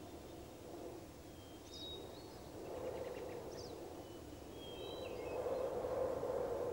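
Outdoor ambience: a steady low background rumble that swells a little near the end, with small birds chirping faintly a few times.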